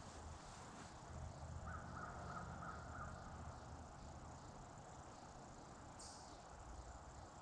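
A distant crow cawing, a quick run of about five caws, over faint steady insect calls in the woods.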